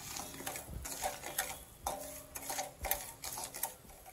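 A flat stainless steel spatula stirs sugar dissolving in a little water in a steel pan. It scrapes and clinks against the metal in short, irregular strokes.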